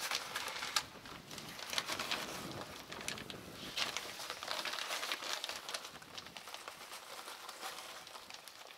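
Yellow plastic sack crinkling and rustling while hard bitumen pieces are crumbled into a can, with many small irregular crackles and clicks.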